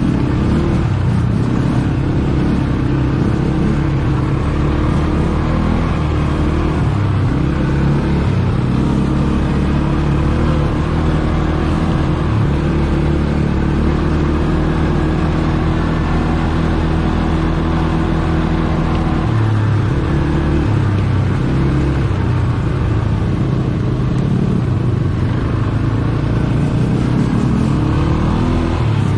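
ATV engine running steadily while riding, its pitch holding mostly level with small shifts.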